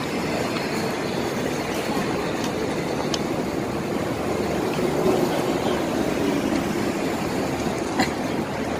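Steady noise of passing road traffic, with a single sharp click near the end.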